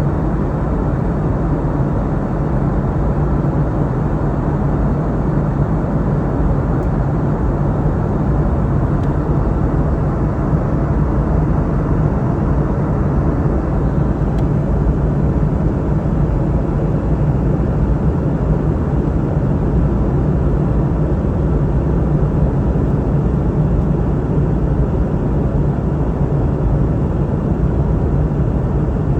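Steady cabin noise of a Boeing 717-200 in flight: an even rumble of jet engines and airflow, with a low steady hum and no change through the stretch.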